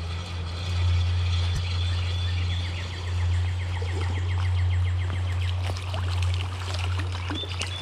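A hooked wild brown trout being played on a light spinning rod in a shallow creek, over a steady low rumble. A rapid, even ticking lasts a few seconds in the middle, and the fish splashes at the surface near the end.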